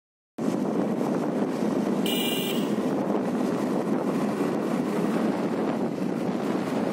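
Wind buffeting the microphone of a phone riding on a moving motorcycle, a steady rushing noise that cuts in just after the start. About two seconds in, a brief high-pitched tone sounds over it.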